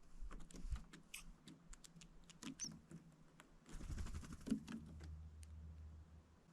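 Small birds hopping and pecking, making light, irregular taps and clicks, with a faint low rumble for a couple of seconds near the end.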